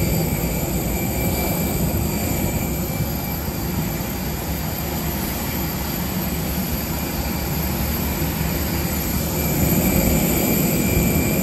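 Steady jet aircraft noise: a low rumble under a constant high-pitched whine, getting a little louder about ten seconds in.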